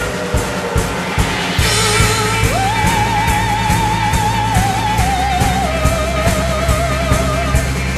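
Background music with a steady drum beat, a bass line and a high melody held in long notes with vibrato, which slides up to a higher note about two and a half seconds in.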